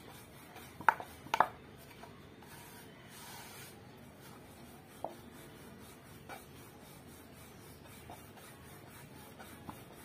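Ridged rolling pin rolling flatbread dough across a round wooden board: a faint steady rubbing, with two sharp knocks about a second in and a few lighter taps later.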